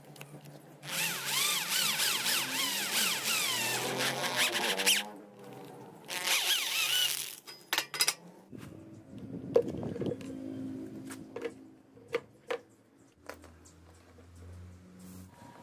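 Power drill boring holes through a 2-inch steel pipe: two bursts of drilling with a wavering high whine from the bit cutting the metal, the second shorter. A few sharp metal knocks follow as the pipe is handled.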